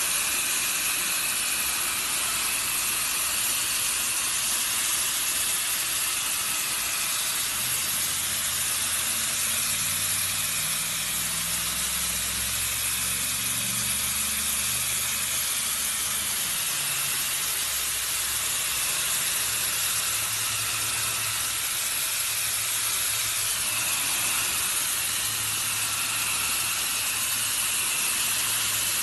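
Pressure washer jet blasting dirt off a concrete path: a loud, steady hiss of high-pressure water striking the surface, with a low hum coming and going underneath.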